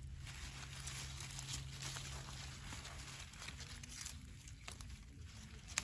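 Strawberry plant leaves rustling and crinkling as a hand reaches in among them to pick the berries, with a sharp click near the end.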